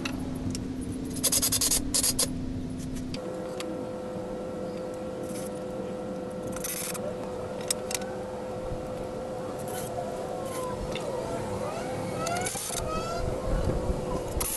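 Wooden boards knocking and scraping as they are handled and set onto a bench's leg frames, a quick cluster of knocks about a second in and a few single clicks later, over a steady background hum.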